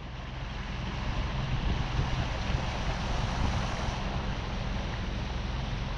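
Quintrex Escape aluminium boat underway: a steady outboard motor running low, with water rushing along the hull and wind on the microphone.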